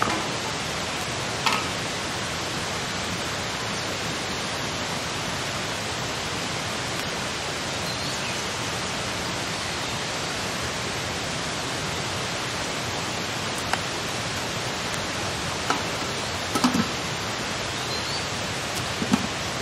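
A steady, even rushing noise, with a few light knocks and clicks from the wooden spatula and the metal cooking pot scattered through it, more of them near the end.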